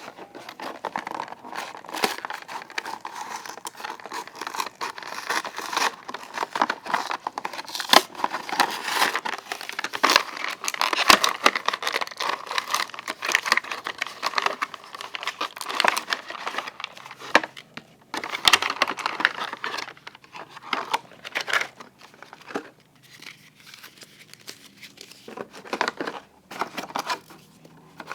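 Toy packaging being opened by hand: dense crinkling and tearing of wrapping for most of the time, thinning out near the end to a few separate snaps and clicks.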